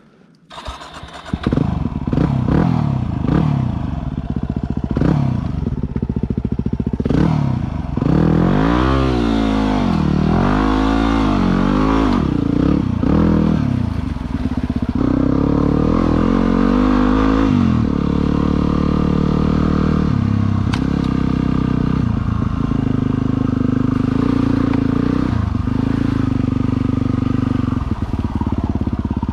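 An engine starts about a second in and is given short blips of throttle, then several longer revs up and down, and settles into a steady idle for the last ten seconds or so.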